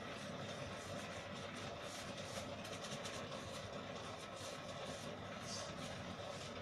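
A steady mechanical hum with a faint held tone under it, and faint crinkles and pats of plastic-gloved hands shaping kebab mixture.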